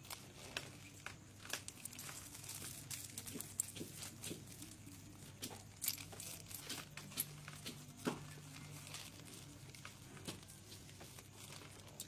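Faint crinkling and rustling with many scattered soft clicks and taps, the sharpest about three and a half, six and eight seconds in, over a faint steady low hum.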